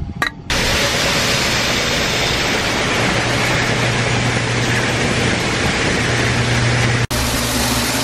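Truck running, heard from inside its cab: a steady, loud rushing noise with a low hum. It starts suddenly about half a second in and cuts off about seven seconds in.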